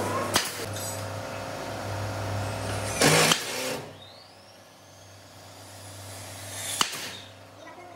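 A workshop power tool running with a steady low hum, a short loud burst of noise about three seconds in, after which the hum stops and it goes quieter; a sharp click near the end.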